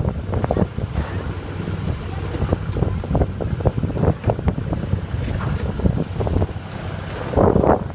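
Open-air tourist train car rolling along, a steady low rumble with irregular rattling and clatter, and wind buffeting the microphone.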